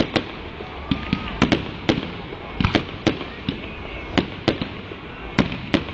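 Fireworks display: aerial shells bursting in a rapid, irregular string of sharp bangs, about fifteen in all, over a steady background hiss.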